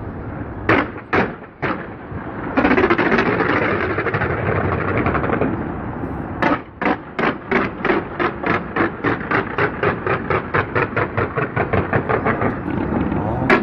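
Fireworks going off: three sharp bangs about a second in, a few seconds of dense crackling, then a long run of rapid, evenly spaced bangs, three to four a second, until near the end.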